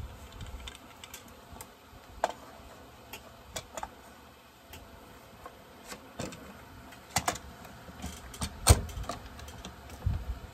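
Scattered handling clicks and knocks as plastic and metal parts of an Echo chainsaw are fitted together by hand during reassembly. There is a quick pair of clicks about seven seconds in, and the loudest knock comes a second and a half later.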